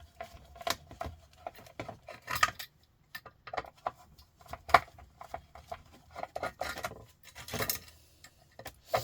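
Irregular clinks, knocks and rattles of small metal parts being handled as a sandwich maker is taken apart by hand.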